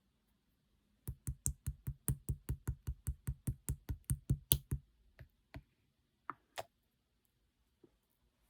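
Red clear slime being worked by hand, making quick popping clicks at about five a second for nearly four seconds, then a few scattered clicks.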